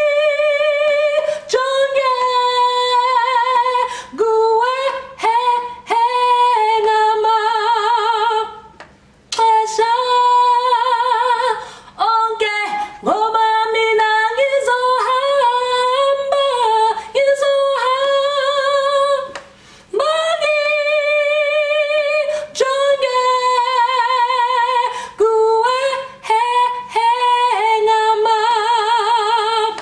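A woman singing solo and unaccompanied, in phrases with a wavering vibrato on the held notes and short breaks between lines. The lyrics include "I trust in you, to keep me safe and protected".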